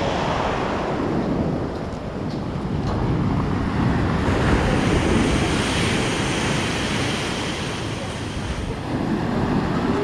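Black Sea surf breaking and washing over a pebble beach, a steady rush of waves on a slightly stormy sea, with wind buffeting the microphone. The wash swells somewhat louder and hissier through the middle of the stretch.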